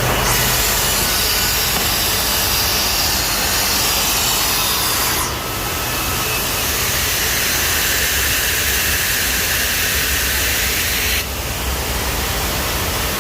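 Industrial edgebanding machine running, its trimming and milling units working a panel edge with a loud, steady high-pitched noise. The noise changes about five seconds in and drops away about eleven seconds in, as the panel moves through different units.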